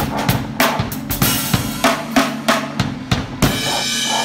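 Background music: a drum-kit beat of bass and snare drum over a steady bass line, about three to four hits a second, breaking about three and a half seconds in into a single loud hit and held high chords.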